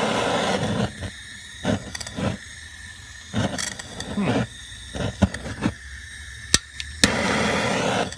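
BernzOMatic trigger-start plumbing torch burning with a steady rushing hiss, then the flame blows out about a second in. Through the middle come short uneven spurts and two sharp clicks of the trigger igniter, and the flame catches again near the end. The flame blows out when the torch is tilted too far forward.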